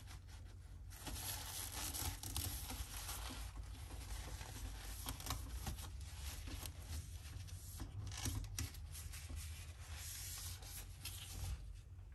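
Paper towel rustling and rubbing as it wipes the stainless steel steam wand of a Nespresso Creatista Plus, with small irregular taps and scrapes.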